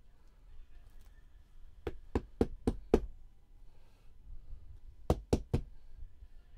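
Knocking: five quick knocks at about four a second, then after a pause of about two seconds three more.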